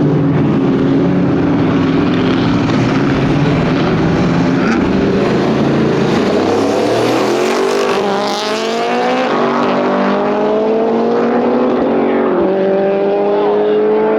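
Street race car engines under hard acceleration during a race run, loud and continuous, the engine note climbing steadily in pitch through the second half, with brief dips where it breaks off and picks up again.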